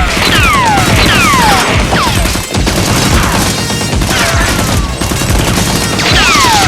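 Rapid gunfire sound effects, shots packed close together, with repeated whistling zips that each fall steeply in pitch, over background music.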